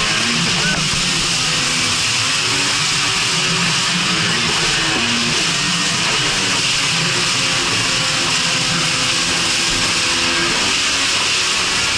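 Jet ski engine running at speed, its pitch wavering a little with the throttle, under a steady rush of water spray and wind.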